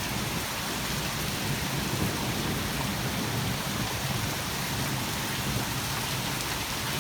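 Heavy rain pouring down hard and steadily in a thunderstorm, an even hiss with no breaks.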